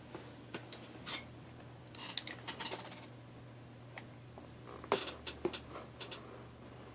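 A shipping package being cut and opened by hand with a knife: scattered sharp clicks and scrapes, with a short spell of crinkling packaging about two seconds in and a few more clicks near five seconds.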